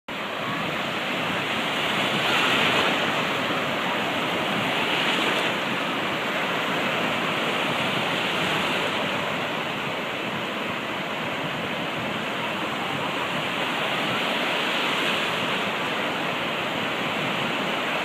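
Sea surf breaking on a sandy beach: a steady wash of waves that swells louder every few seconds as each one breaks.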